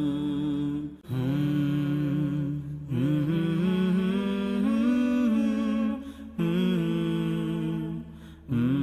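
Unaccompanied vocal nasheed: voices singing and humming long held, gliding notes with no instruments, in phrases separated by short breaths.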